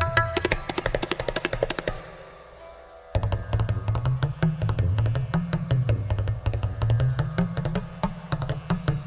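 Tabla played in a fast galloping pattern that imitates a horse running. Rapid strokes drop to a quieter gap about two seconds in, then pick up again while the bass drum's deep tone bends up and down under them.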